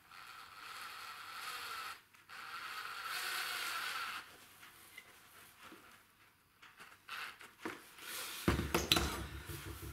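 Cordless drill driving a screw into a small piece of wood, running twice for about two seconds each with a short break between, the second run louder. Near the end come a series of knocks and clatter as the drill is put down and the piece is handled.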